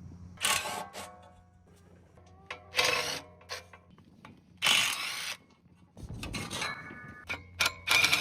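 Hand tools working on a steel electric motor being taken apart: three short noisy bursts of tool work, then a run of sharp metal clinks and taps that ring on briefly.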